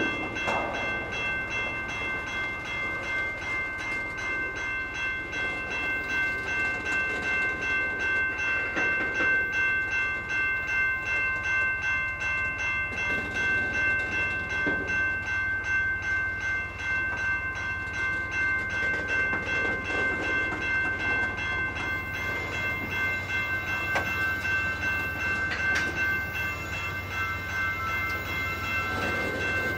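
Freight train tank cars rolling slowly past, with low rumble and a soft clunk every few seconds as wheelsets pass. Over this a grade-crossing warning bell rings steadily, heard as a fast, even, high-pitched ringing.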